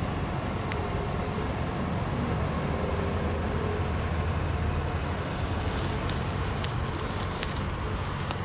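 2014 Toyota Camry 2.5-litre engine idling, heard as a steady low hum through its quiet, muffled exhaust. A few light clicks come near the end.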